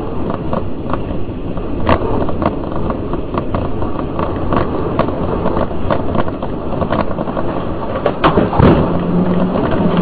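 Car driving on a highway, recorded by a dashcam inside the cabin: steady road and wind noise with scattered clicks and knocks. About eight seconds in come a few louder knocks, followed by a low steady hum.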